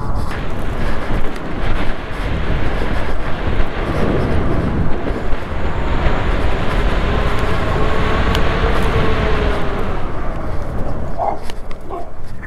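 Wind rushing and buffeting on a handlebar-mounted action camera's microphone while riding an e-bike. A faint whine rises and falls in pitch midway. A couple of short, light brake squeaks come near the end.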